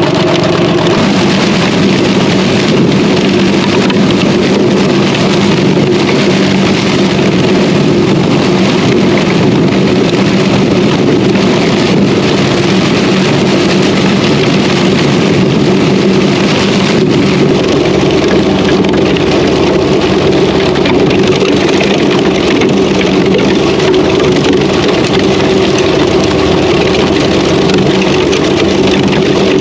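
Tractor engine running steadily with a constant hum.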